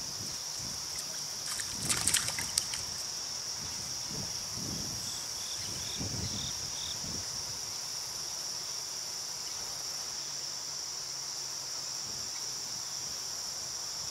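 Steady, high-pitched chorus of insects such as crickets. About two seconds in there is a brief cluster of sharp clicks and knocks, and a few soft low thuds follow later.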